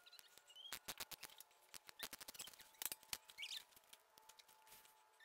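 Faint, irregular clicking of a ratchet wrench in short spurts as a 12 mm bolt is loosened, with a few brief high squeaks.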